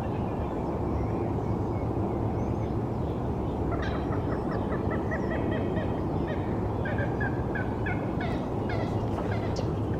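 A bird calling in rapid runs of short, repeated high notes from about four seconds in, over a steady low rumble of distant city traffic.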